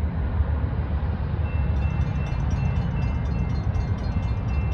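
Diesel locomotives of a Norfolk Southern freight train approaching, a steady low engine rumble. From about a second and a half in, a faint high ringing repeats at regular intervals over it.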